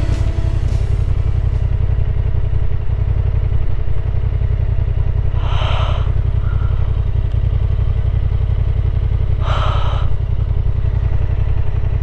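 Honda Transalp 750's parallel-twin engine running steadily as the motorcycle rides along, with two short rushes of noise about five and a half and nine and a half seconds in.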